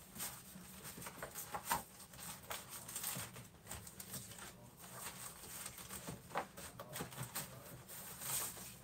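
Hand rummaging through scraps of card and paper: faint, irregular rustles and light taps.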